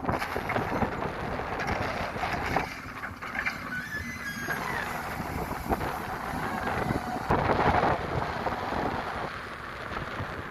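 Hyundai R220 excavator running as it works, its engine and machinery heard through wind on the microphone. The sound rises and falls unevenly.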